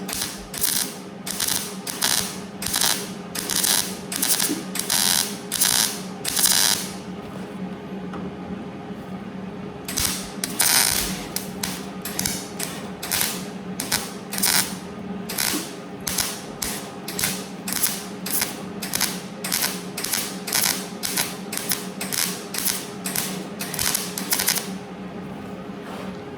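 MIG welder laying short stitch welds on sheet-metal patch panel, each a brief crackling burst, two or three a second, in two runs with a pause of a few seconds between them. A steady low hum runs underneath.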